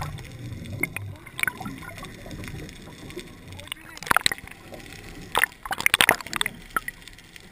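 Water lapping and sloshing at the waterline, broken by a few short, sharp splashes about a second and a half in, around four seconds in, and a cluster between five and six seconds in.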